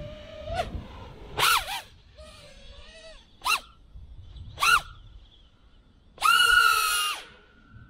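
iFlight Nazgul 5-inch FPV quadcopter's brushless motors and propellers whining, the pitch sweeping up and down with throttle in a few short bursts and one longer, loudest burst near the end.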